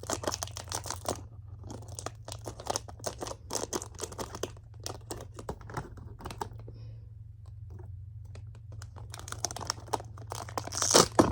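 A toy minifigure's packaging being torn open and crinkled by hand: dense irregular crackling and clicking, pausing briefly past the middle and getting louder near the end, over a low steady hum.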